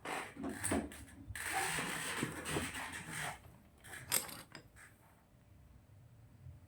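Handling noises: scraping and rubbing for about three seconds, then a single sharp click, then quiet.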